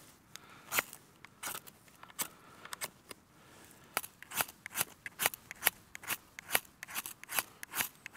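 Traditional flint and steel struck over and over to throw sparks into tinder for a fire: a string of short, sharp scraping strikes, sparse at first and quickening to about three a second in the second half.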